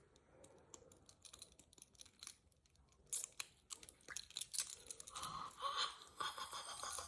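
Protective plastic film being picked at and peeled off a small item by fingernail: scattered faint clicks at first, then denser crackling and crinkling through the second half.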